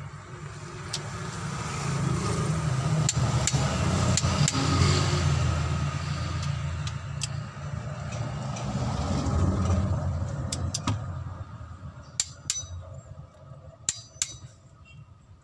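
A vehicle engine running nearby, swelling louder over several seconds and then fading away. Sharp metallic clicks from a click-type torque wrench and its ratchet come as cylinder head bolts are tightened, several close together near the end.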